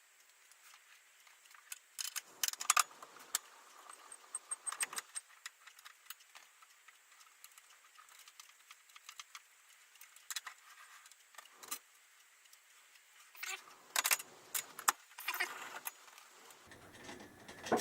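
Intermittent metallic clicks, clinks and short rattles of hand tools, an 8mm socket and a 10mm spanner, working on the bolts of a motorcycle's top rack. The clicks come in several bunches, the densest about two to three seconds in and again near the end.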